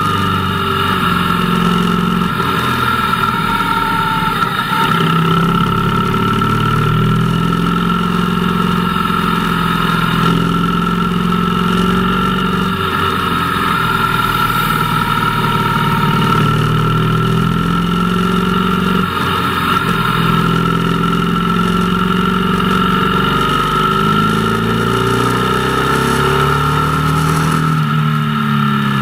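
Motorcycle engine running on the move, its pitch rising and falling every few seconds as the throttle opens and closes, with a steady high whine over it.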